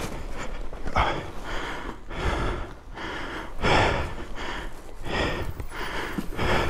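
A person breathing hard close to the microphone, with quick, even breaths about one to one and a half a second.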